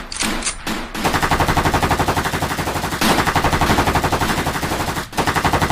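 A toy gun's electronic machine-gun sound effect firing in rapid bursts of about a dozen shots a second, with short breaks near the start and about five seconds in.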